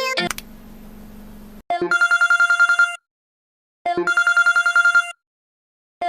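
Telephone ring: a fast trilling tone sounding in bursts of about a second, twice, with a third ring starting at the end. Before the first ring there is a low steady hum for about a second and a half.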